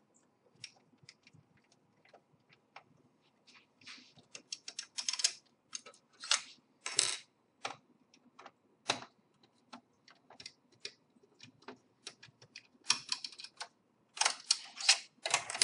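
Irregular clicks, taps and short scrapes of a screwdriver working small screws out of an Xbox 360 Slim's plastic casing and the parts being handled, with a dense cluster of them near the end.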